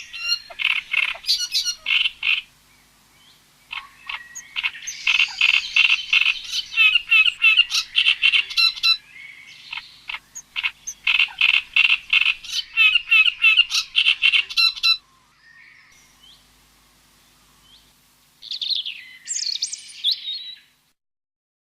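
Animal calls: runs of rapid, rhythmic high chirps, several a second, coming in three long runs with short pauses between them, then a shorter, harsher squawking call near the end.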